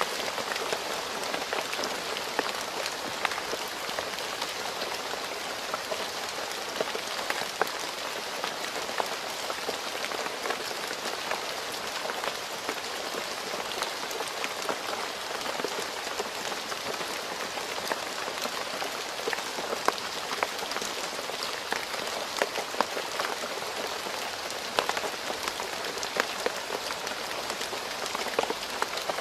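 Steady rain falling on a road: an even hiss with many separate drop taps scattered through it.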